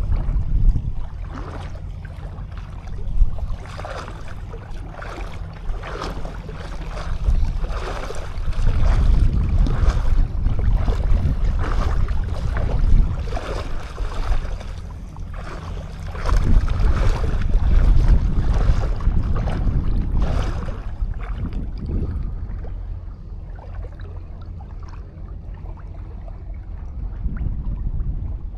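Sea waves washing onto a sandy shore, the hiss of the surf swelling and fading every few seconds, over a low rumble of wind buffeting the camera's microphone.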